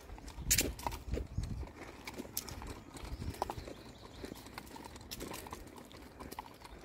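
Footsteps on a paved path, irregular knocks and scuffs a few times a second.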